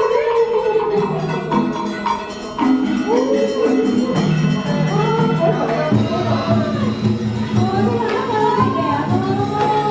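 Traditional Vietnamese water puppet theatre music: a voice sings with sliding, ornamented pitch over plucked and percussion instruments with sharp wood-block-like clicks. A fuller, steady low accompaniment comes in about six seconds in.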